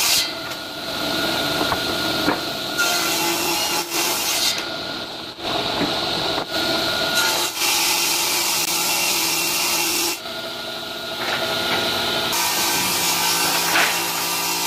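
Homemade table saw driven by a three-phase electric motor ripping a wooden plank lengthwise, the blade's cutting noise over a steady motor hum. The cutting noise eases three times and comes back as the board is pushed on through the blade.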